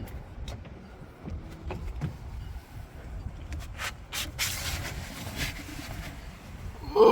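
Gusty wind buffeting the microphone in a low, uneven rumble, with scattered clicks and a brief rustling hiss midway. A short loud sound that drops in pitch comes right at the end.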